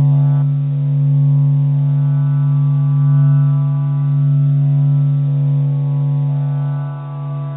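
Sustained electronic drone holding one deep note with a stack of overtones, swelling and easing slowly. A few of the higher overtones change about half a second in and again near the end.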